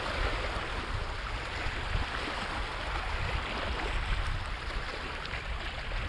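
Small lake waves lapping and washing against a rocky shoreline, a steady watery hiss, with wind rumbling on the microphone.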